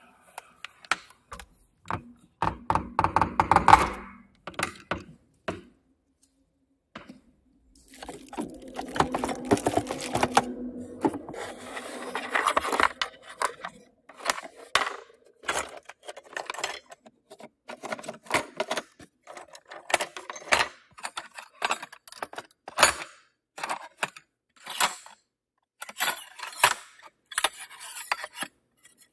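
Kitchen utensils and dishes handled close up: a run of clinks, clicks and rattles. There is a dense rattling, scraping stretch near the start and a longer one in the middle, then scattered separate clicks.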